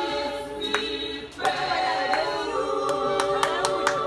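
Several voices singing together, with sharp clap-like hits now and then, more often near the end.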